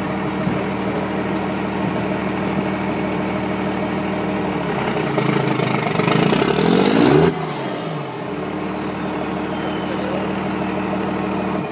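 Dodge Cummins 5.9 turbo-diesel running at idle through a 7-inch stack, revved once for about two and a half seconds about five seconds in, then dropping sharply back to idle. A high whistle falls away slowly after the rev.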